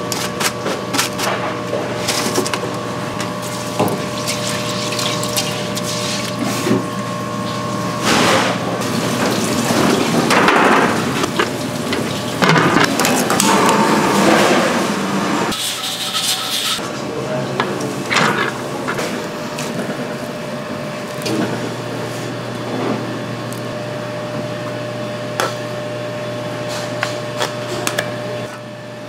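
Kitchen work: water sloshing as seaweed is rinsed by hand in a stainless sink, with scattered knocks and clatter of kitchenware over a steady hum. A louder rushing noise through the middle stops suddenly.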